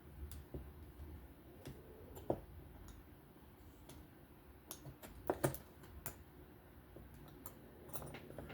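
Scattered small metal clicks and taps as titanium folding-knife parts (handle scales, pivot, pocket clip) are handled and fitted back together, with a quick cluster of clicks about five seconds in.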